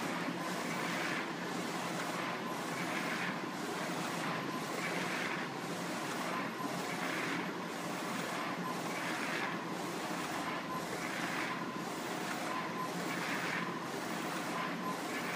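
Direct-to-garment printer printing onto a shirt: the print-head carriage sweeps back and forth with a rhythmic whir about once a second, stronger every second pass, over a steady machine hum.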